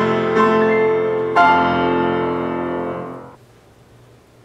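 Piano playing the closing chords of a song. The last chord is struck about a second and a half in and rings on, fading away by about three seconds in.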